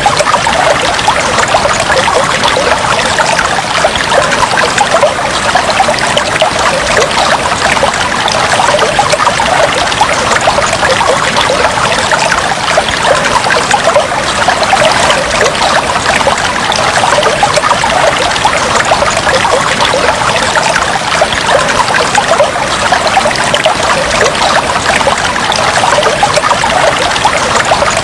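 Aquarium water trickling and bubbling steadily, a dense, even patter of small splashes with no pauses.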